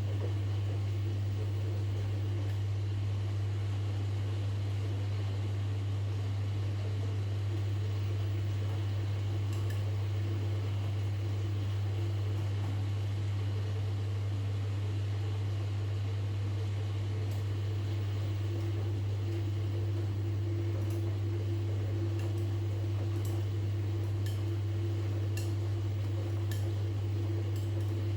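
Washing machine running with a steady low hum, fainter faint ticks from about halfway on.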